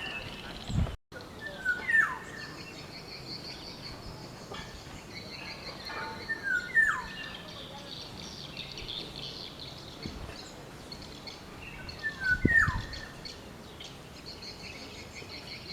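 Black-naped oriole singing a short fluty phrase that ends in a falling slur, three times about every five seconds, over a steady high hiss in the background.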